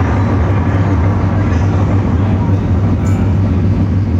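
Electric guitar run through a large board of effects pedals, playing a loud, steady dark-ambient drone with a strong low hum.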